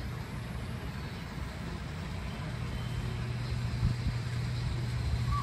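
A steady low hum and rumble of background noise, with a couple of soft low thumps in the second half.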